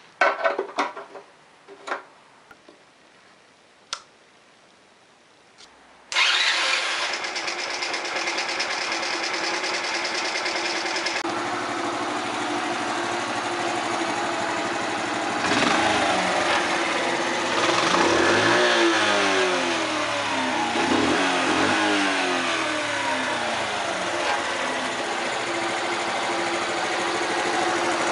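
A few knocks and clatters, then the 1982 Honda Passport C70's small single-cylinder four-stroke engine starts suddenly about six seconds in and keeps running. It is revved up and down several times partway through, after a carburetor needle-jet swap meant to cure a rich, fuel-dumping condition.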